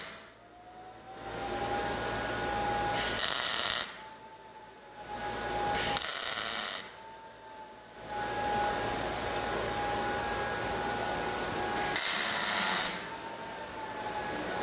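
MIG welder laying quick tack welds on steel square-tube table frame: three short crackling bursts, each under a second and a few seconds apart. A steady hum with a thin whine runs beneath and between them.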